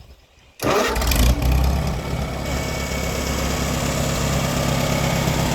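Freshly rebuilt Farmall 140 tractor engine, a four-cylinder, comes in abruptly about half a second in. It is briefly louder, then settles to a steady idle.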